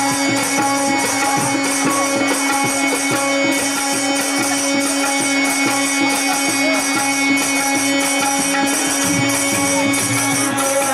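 Instrumental music: a steady held drone with jingling percussion striking in a regular beat about twice a second.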